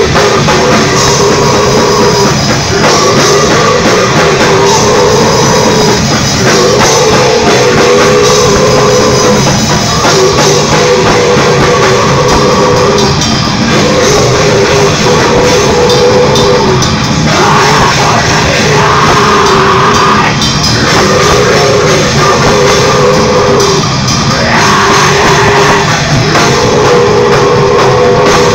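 Death metal band playing live, loud: distorted electric guitars and drum kit, with a riff repeating about every two seconds.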